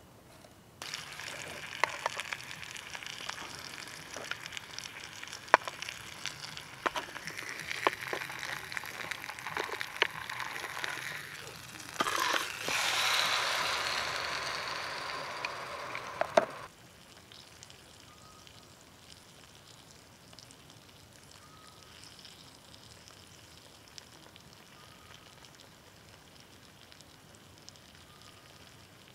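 Meat frying in a Trangia pan on an alcohol stove: a steady sizzle with scattered sharp pops. The sizzle swells louder a little past the middle, then cuts off suddenly, leaving only faint background with a few faint short chirps.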